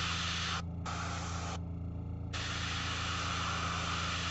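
Airbrush spraying paint in three bursts of hiss, cut off briefly just under a second in and again for most of a second around the two-second mark, over a steady low hum.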